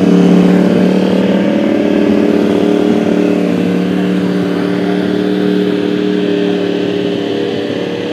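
2010 Yamaha R1's crossplane inline-four, through an Akrapovič exhaust, revved and held at a steady high pitch, easing off slightly near the end.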